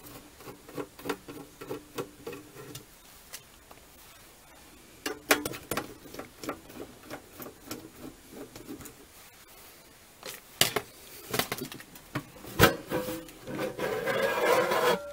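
A screwdriver clicks in repeated runs of small metallic ticks, about three or four a second, as screws are backed out of a QUICK 706W+ hot-air station's sheet-metal case. A few sharper knocks follow, then a scraping rattle near the end as the metal cover is worked loose.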